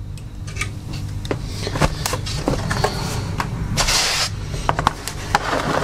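Plastic case of a Medion digital notepad being handled and moved on a desk: scattered light clicks and knocks, with a short scraping rub about four seconds in.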